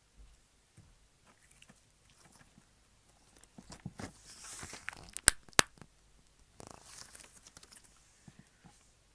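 Slime being stretched and squished by hand, with sticky crackling and tearing sounds and two sharp pops close together about five seconds in.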